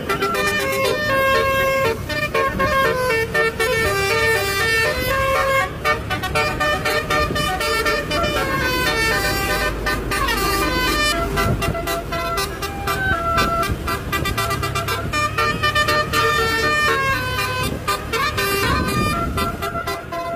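Basuri 'telolet' musical air horn playing a song melody as a run of held notes that step up and down, over a steady low engine rumble.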